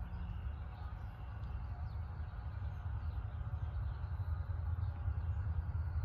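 Outdoor ambience: low wind rumble on the microphone, with a few faint bird chirps.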